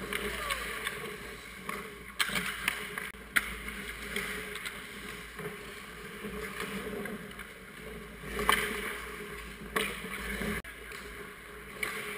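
Ice hockey rink sounds heard close to the goal: a steady scraping hiss of skates on the ice, with sharp clacks of sticks and puck a few times, the loudest about three and a half and eight and a half seconds in.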